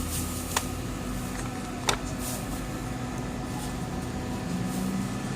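A steady mechanical hum with two light clicks in the first two seconds.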